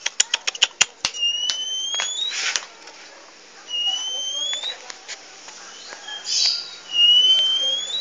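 Oriental magpie-robin (kacer) giving three rising whistled notes, each about a second long and roughly three seconds apart, with two short harsh rasping calls between them. A quick run of about eight sharp clicks opens the sound.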